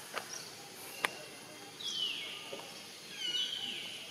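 Two short high-pitched animal calls, each sliding down in pitch, about two seconds and three seconds in, with a couple of faint clicks before them.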